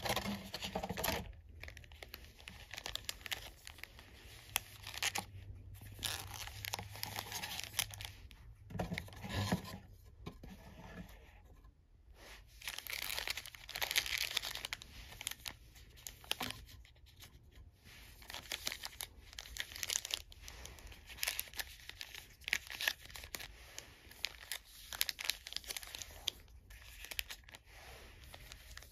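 Crinkling of shiny foil-plastic trading-card pack wrappers as the packs are pulled out of a cardboard box and shuffled by hand, in irregular crackly bursts with short pauses.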